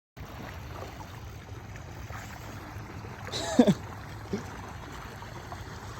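Steady wash of surf, with a short falling vocal exclamation a little past halfway.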